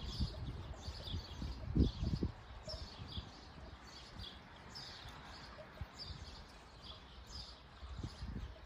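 Birds chirping in the background: short, high chirps repeating every half second or so. A few low knocks and thumps sound in the first two seconds.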